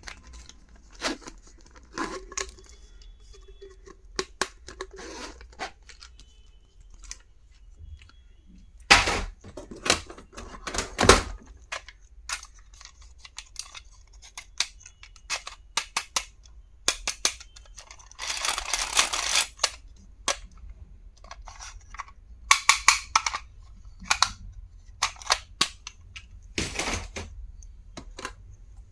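Hands unpacking and handling stationery and its packaging: scattered clicks, taps and knocks of small plastic and metal items, with a couple of louder knocks about nine and eleven seconds in, and a longer rustle of packaging about eighteen seconds in.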